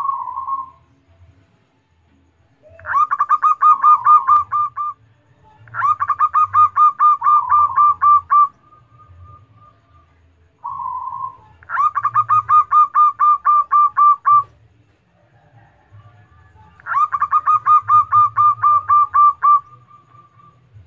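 Zebra dove (perkutut) singing: four phrases, each a rapid run of short, clipped cooing notes, with a single brief note at the start and another just before the third phrase.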